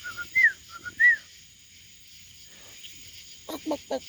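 Poultry calling: a few short, high chirps in the first second, then a quick run of about four low, clucking calls near the end, over a steady chorus of night insects.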